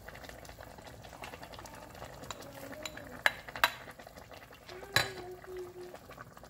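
A plastic ladle stirring simmering chicken noodle soup in a stainless steel pot, over a steady bubbling hiss. There are a few sharp clicks of the ladle against the pot, two close together about three seconds in and one about five seconds in.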